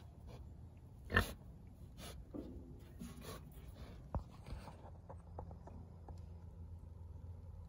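Pig snuffling at close range: a few sharp snorts and short grunts, the loudest about a second in. After about five seconds the snorts stop, leaving only a faint low hum.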